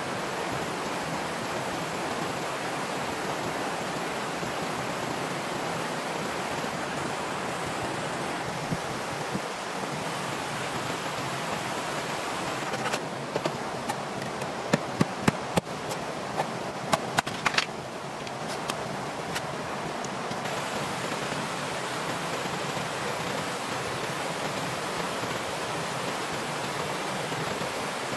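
Steady rush of a forest stream, with a run of about ten sharp knocks about halfway through as a knife chops at a bamboo pole.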